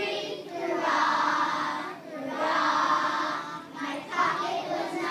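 A class of kindergarten children singing together as a choir, in two longer phrases with a short break between them.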